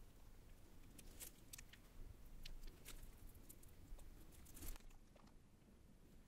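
Faint crinkles and small, scattered ticks from a plastic piping bag being squeezed by a gloved hand as macaron batter is piped out through a metal tip.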